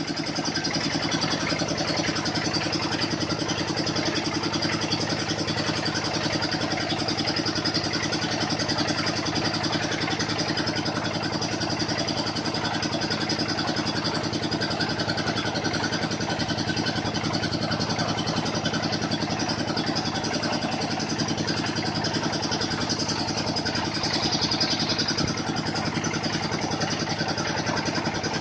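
The engine of a water-well drilling machine running steadily at a constant speed, with a brief rise in a higher-pitched component near the end.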